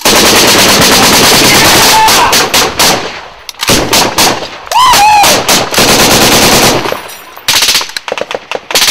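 Loud automatic gunfire: a continuous burst of rapid shots for nearly three seconds, a few separate shots, a second long stretch of rapid fire, then scattered single shots near the end.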